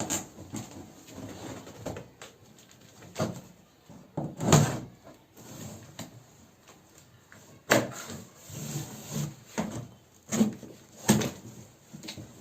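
Keyboard packaging being handled and pulled open: a series of knocks and thumps with rustling between them, the loudest about four and a half seconds in.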